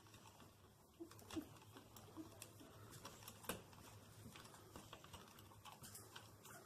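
Faint, irregular small clicks and rustles of electrical wires and wire nuts being pushed up into a ceiling electrical box behind a fan mounting bracket.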